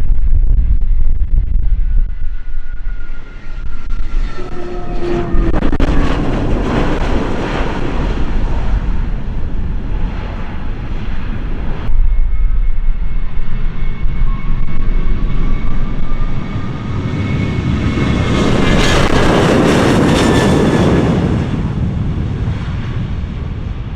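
Jet airliner engines at takeoff power passing close by, twice. Each pass swells and fades with a whining tone that falls in pitch, and the sound breaks abruptly about halfway through.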